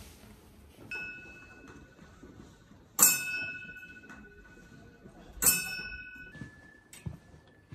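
Small metal bell struck three times, about two and a half seconds apart, each strike ringing on with a clear tone. Near the end a second, higher-pitched bell rings.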